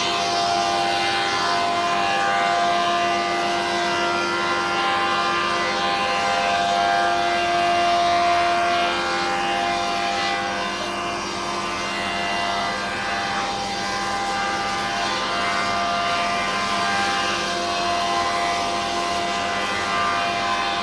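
S25-4 four-sided wood planer-moulder running: a steady machine whine made of several held tones, dipping slightly in loudness about halfway through.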